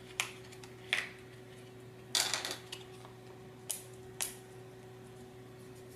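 Small metal machine bolts being handled as they are taken out of a plastic parts bag: a few separate light clicks and a short rattling cluster about two seconds in.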